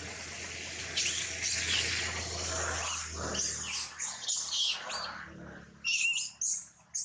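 Monkeys giving a run of short, high-pitched squeals and squeaks over a steady hiss of heavy rain, which fades out about two-thirds of the way through.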